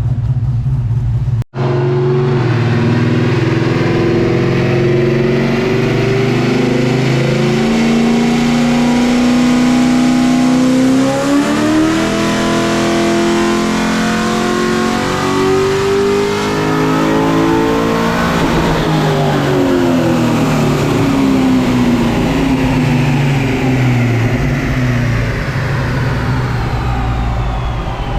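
LS1 V8 in a VN Commodore on a chassis dyno making a full-throttle power pull. The revs climb steadily for about sixteen seconds toward a 7,000 RPM limit, then wind back down as the run ends. The sound is loud and harsh, described as sounding absolutely insane, like it's going to shoot a rod out of the block.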